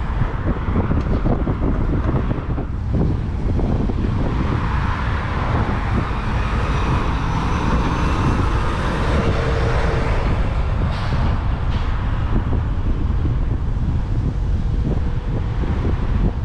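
Steady freeway traffic noise with strong wind buffeting the microphone as a low rumble, the traffic swelling for several seconds in the middle as vehicles pass below.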